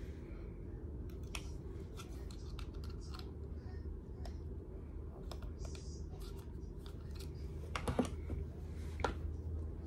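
Scattered light plastic clicks and handling noises from a phone and its charger being handled and plugged in, with a sharper click about eight seconds in and another about a second later, over a steady low hum.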